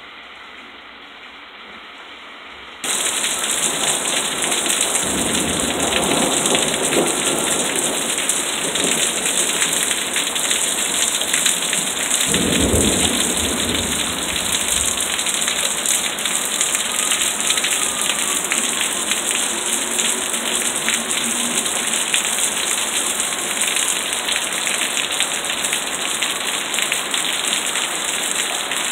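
Heavy rain pouring onto pooled water and concrete in a hail storm, muffled behind window glass at first, then suddenly loud and open about three seconds in. Thunder rumbles twice, the stronger about halfway through.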